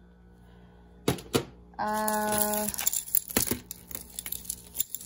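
Costume jewelry clinking and rattling as beaded necklaces, chains and bracelets are moved about in a heap: two sharp clicks about a second in, then a run of small metal and bead clicks in the second half. A short steady tone sounds just before the rattling.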